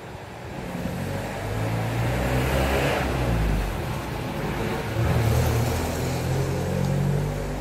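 A motor vehicle engine running, its low hum rising and falling in pitch for several seconds, with a hiss swelling and fading twice.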